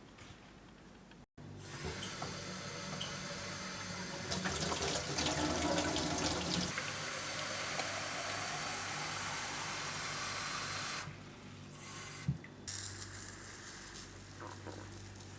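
Water running from a tap into a sink, starting about a second in and shutting off sharply near eleven seconds, followed by a few faint knocks and handling sounds.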